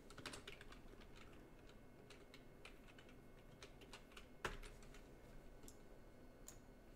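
Faint, irregular keystrokes on a computer keyboard, with one louder click about four and a half seconds in.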